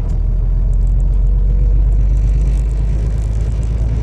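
Truck engine running with a steady low drone, heard from inside the cab while driving.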